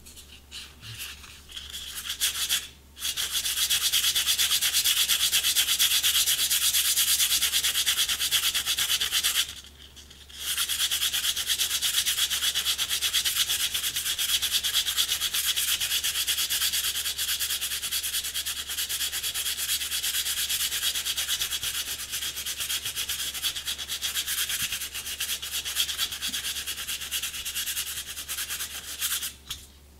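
Sandpaper rubbed rapidly over a cane clarinet reed on a glass plate, sanding down the middle of the reed. A steady scratchy hiss with a short break about three seconds in and a pause of about a second around ten seconds in; it stops just before the end.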